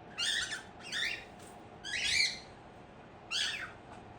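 Pet bird giving four short, harsh squawks about a second apart, the third the loudest.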